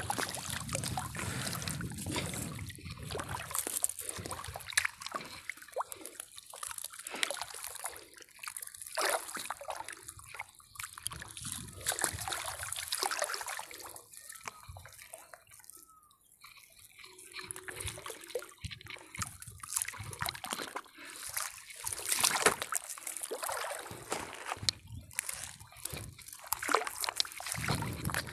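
Water trickling and splashing off a wet fishing net as it is hauled by hand out of lake water and over the side of a boat, in irregular spatters and drips, briefly quieter about halfway through.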